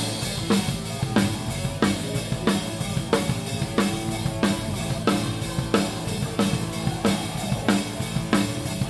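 Rock drum kit played hard in a steady groove, heard close up from the kit, with a loud drum hit about twice a second over bass drum and cymbals.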